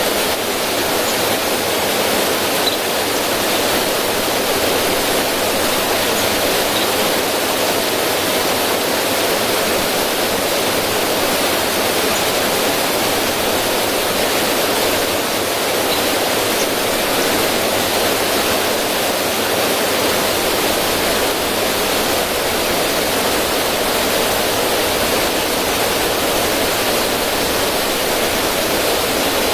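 River water rushing over rocks in a small cascade: a steady, even rush with no break.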